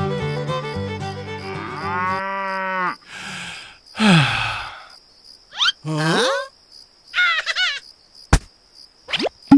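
A music cue ends about two seconds in, followed by a string of separate animal-call sound effects with sliding pitch, among them a cow mooing, and a single sharp click near the end.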